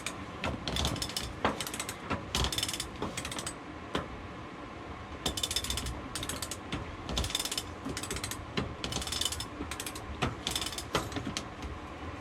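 Sailboat winch being cranked in short strokes, its pawls ratcheting in about a dozen quick bursts of clicks with brief pauses between, as the genoa halyard is winched up.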